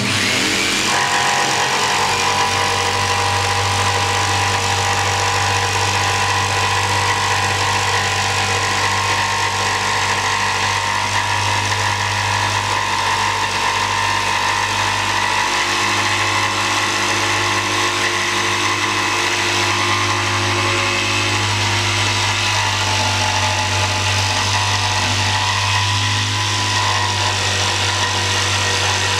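Jigsaw sawing through a laminated chipboard kitchen worktop, coming in at the start and then cutting at a steady pace.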